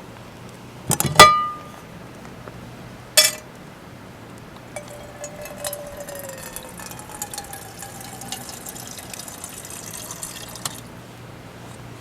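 A sharp clink with a short ringing tone about a second in, a second clink about three seconds in, then liquid pouring steadily for about six seconds, stopping suddenly near the end.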